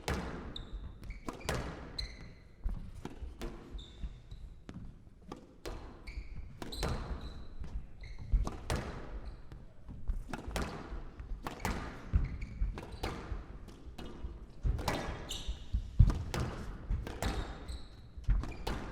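A squash rally: the ball cracks off rackets and the court walls in quick, irregular succession, with short squeaks of players' shoes on the court floor between shots.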